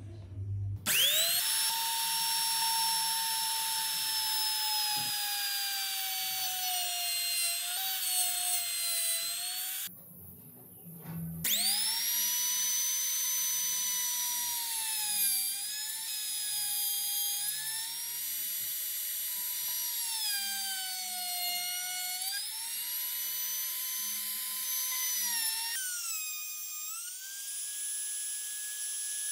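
Electric rotary tool spinning a small burr, a high-pitched whine whose pitch sags as the bit bores into the side of a pine ring and recovers as it eases off. It runs for about nine seconds, stops for about a second and a half, then starts again and runs on, its pitch stepping higher near the end.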